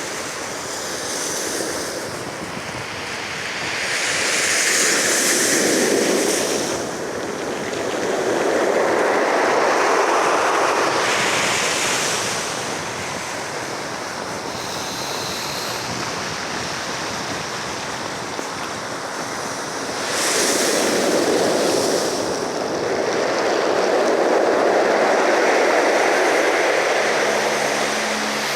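Ocean waves breaking and washing ashore in slow surges, about four swells rising and falling.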